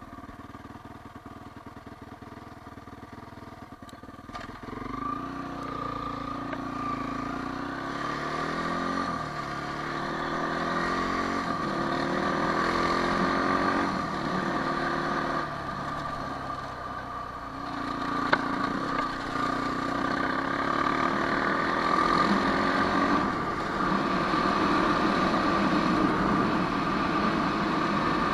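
Quad bike engine driving along a dirt track, running low for the first few seconds, then opening up about four seconds in. Its pitch rises and falls as the throttle and speed change.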